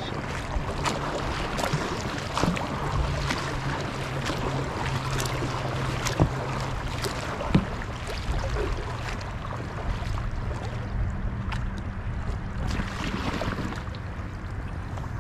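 Kayak paddles dipping and splashing in the water, stroke after stroke, with wind on the microphone.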